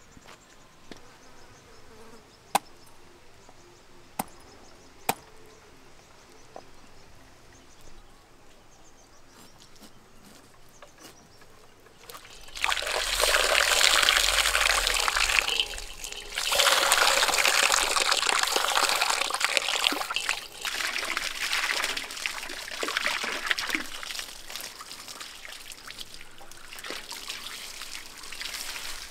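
A few sharp knocks early on as a large knife cuts into a big hanging fish. Then, a little under halfway in, water from a hose pipe starts running and splashing loudly, with a short break, and carries on at a lower level in the second half.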